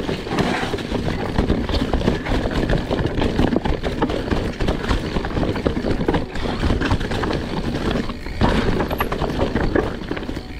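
Mountain bike riding over a rocky trail covered in dry fallen leaves: the tyres crunch through the leaves and the bike rattles and clatters over the rocks in a steady, dense run of irregular knocks.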